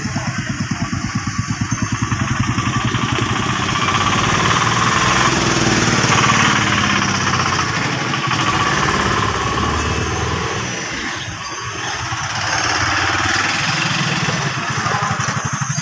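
Motor vehicle engines on the road: a nearby engine idling with an even pulse, a louder passing rush through the middle that eases off briefly about two-thirds of the way in, then idling pulses again near the end.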